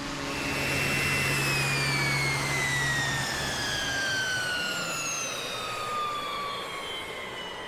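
Jet aircraft passing by: a loud rushing roar with a high turbine whine that slowly falls in pitch.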